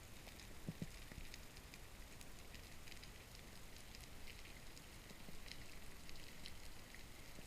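Underwater ambience: a faint, steady crackle of many small clicks, with a few short low knocks about a second in, typical of brown meagre drumming.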